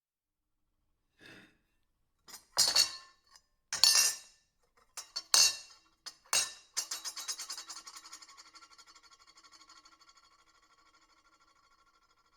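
Silverware clinking against a plate: a few sharp clinks, then a fast rattle that fades away over several seconds while the plate rings.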